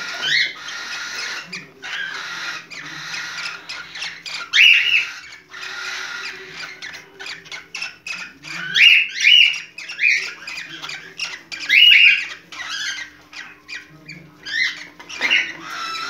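Cockatiel in breeding condition calling: loud, short, rising squawking whistles, several in quick runs through the middle, with softer chirps between.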